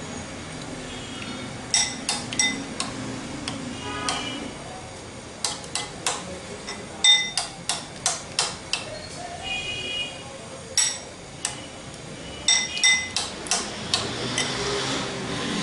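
Metal spoon clinking against a glass bowl as balls are dipped and turned in beaten egg: sharp clicks with a short glassy ring, coming in irregular clusters.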